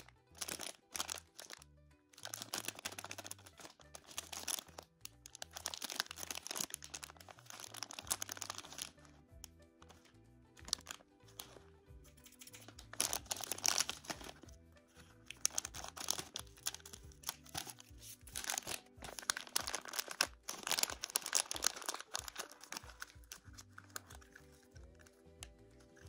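A plastic lollipop package crinkling and tearing in several bursts as it is handled and cut open with scissors, over background music.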